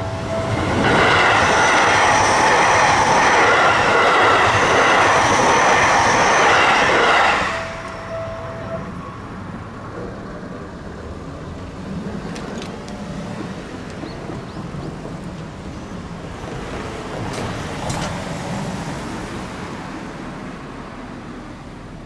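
Seibu Haijima Line electric train passing over a level crossing for about seven seconds. The crossing bell's steady ringing is heard again for a moment just after the train clears, then stops. Quieter traffic noise follows.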